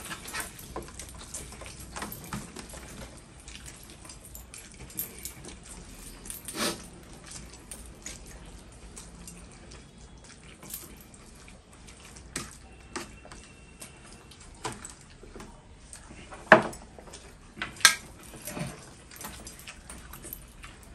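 Wet eating sounds: hands squishing through rice on steel platters and mouths chewing, with scattered sharp clicks and clinks against the steel plates. A few louder knocks stand out, the loudest about two-thirds of the way through.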